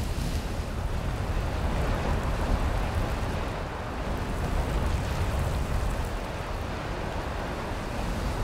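Steady wind buffeting the microphone: an uneven low rumble with an even hiss above it.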